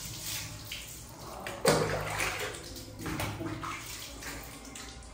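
Water poured from a plastic dipper splashing over a child and onto a tiled floor, with a sudden loud splash about one and a half seconds in and a smaller one about three seconds in.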